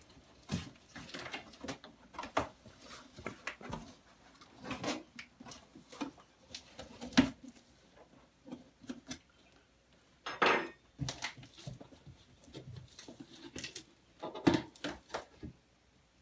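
Handling of a large cardboard TV box: irregular knocks, clicks and scrapes as it is worked open. There is a sharp knock about seven seconds in and a short scrape about ten seconds in.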